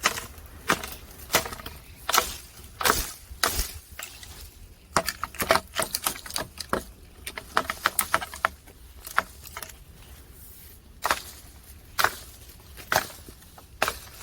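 Green plums (maesil) being knocked down from a tree: an irregular run of sharp knocks as the fruit is shaken loose and drops, thickest in the middle and thinning out toward the end.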